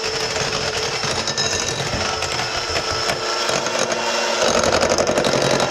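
Electric hand mixer running steadily on medium speed, its beaters churning cake batter in a mixing bowl: a continuous motor whine with a busy rattle of the beaters, a little louder near the end.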